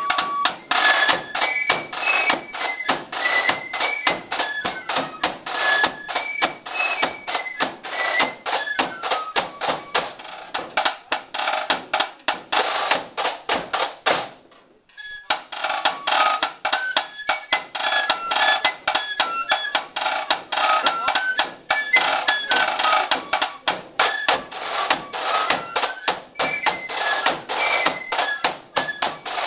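A marching flute band playing indoors: flutes carry a quick stepping melody over rapid snare drum strokes and rolls, with a bass drum in the band. About halfway through the music stops for under a second, then the tune starts again.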